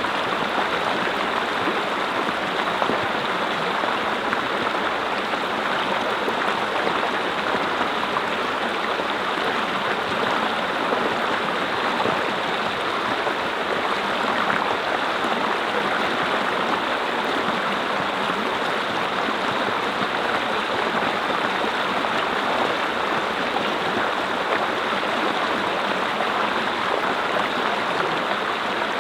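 Mountain brook flowing over rocks, a steady rushing and gurgling of water without letup.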